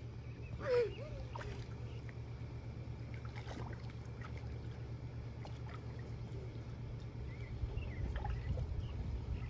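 Low steady rumble that swells a little near the end, with faint light splashing from a toddler paddling in a swimming pool.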